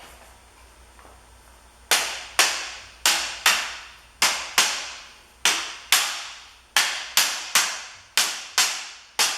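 Steel rings being knocked into their half-lap notches: after a quiet start, a run of sharp blows, often in pairs about half a second apart, each ringing briefly. The ring is a snug fit being tapped into its seat.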